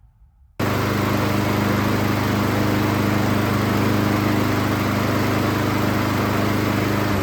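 Lawn mower engine running at a steady speed, starting abruptly about half a second in and winding down as it shuts off near the end.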